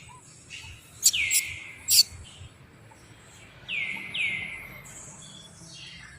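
High-pitched animal calls: three chirps, each sliding down in pitch and trailing off, one about a second in and two close together near the middle. A few sharp clicks come in between the first call and the pause that follows.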